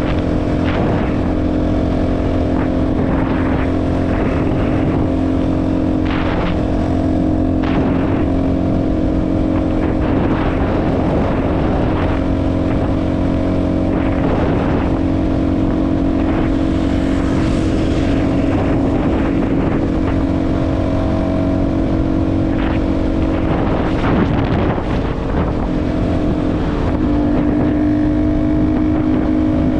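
CFMoto 250NK's single-cylinder engine running through a full Akrapovič exhaust at a steady cruising pace, its note shifting slightly near the end. Wind hits the microphone throughout.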